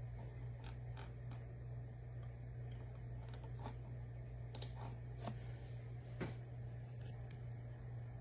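Scattered light clicks and taps, a few loud enough to stand out about four and a half and six seconds in, over a steady low hum.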